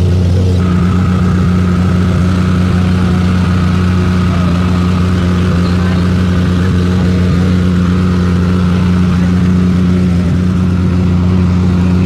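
A steady low mechanical drone at a constant pitch, with a fainter higher tone joining about half a second in.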